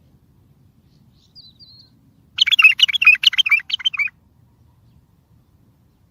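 Bulbul singing: a faint short note about a second in, then one loud, fast phrase of warbling notes lasting under two seconds.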